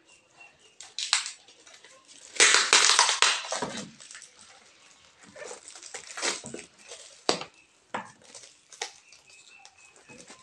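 Tape-sealed parcel wrapping being peeled and torn open by hand: crinkling and ripping, loudest in one long tear about two and a half seconds in, then scattered crackles as more tape and wrapping come away.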